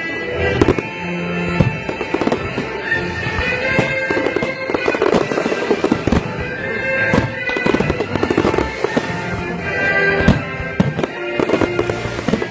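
Fireworks going off in quick, irregular succession, sharp bangs and crackles one after another, over music playing throughout.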